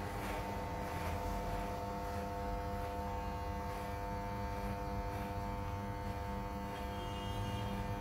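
Corded electric hair clipper buzzing steadily as it trims a beard under the chin.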